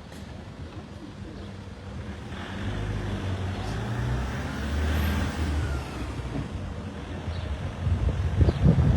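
A motor vehicle passing on the road: engine hum and tyre noise build to a peak about halfway through, then fade. Near the end, wind buffets the microphone.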